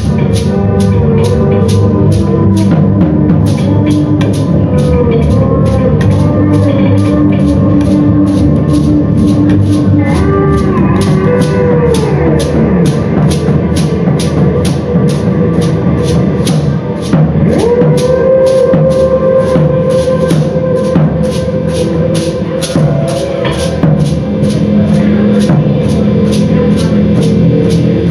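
Live music: a steady, high-pitched percussive pulse about twice a second under held, droning tones. About midway one tone slides down in pitch, and a few seconds later another slides up and holds.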